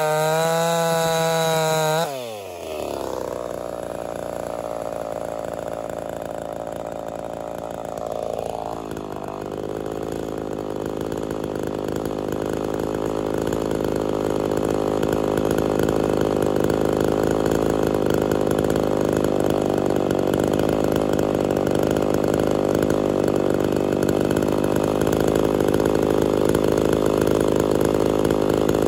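A ported Homelite Super XL-130 two-stroke chainsaw runs at full throttle in a cut, its pitch wavering under load. About two seconds in it drops sharply to idle and then idles steadily.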